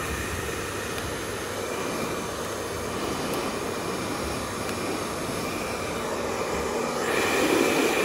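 Yongshi handheld hair dryer running, blowing a steady stream of air. It grows louder about seven seconds in, as the nozzle is brought up close to the projector's open hatch.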